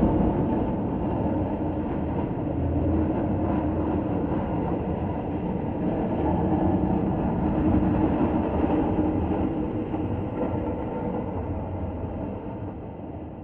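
Industrial horror sound effect: a steady, dense mechanical rumble with a faint held hum, like a heavy train or machinery, that fades out near the end.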